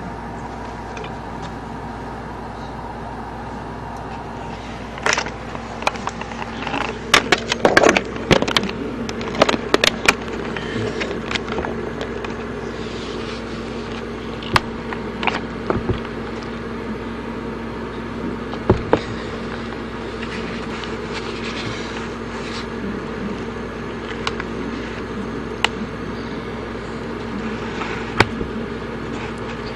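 A steady low hum runs throughout. Over it, a dense run of sharp cracks and crackles comes about five to eleven seconds in, with a few single knocks later: raw eggs being crushed inside canvas high-top sneakers as the feet work into them.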